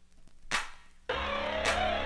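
Background music: sharp clap-like percussion hits about once a second, then the full electronic track with bass comes in suddenly about halfway through.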